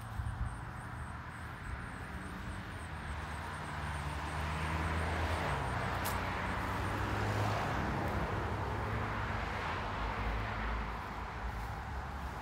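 A vehicle passing: a rush of road noise that swells over several seconds in the middle and eases off near the end, over a low engine hum.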